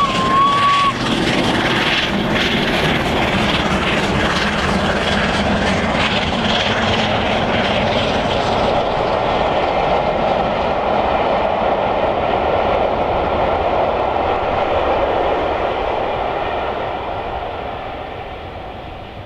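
Peppercorn A1 Pacific 60163 Tornado, a three-cylinder steam locomotive, passing at speed under hard steam with its exhaust beating, followed by its eleven coaches running past on the rails. The sound fades away over the last few seconds. A brief high wavering tone sounds in the first second.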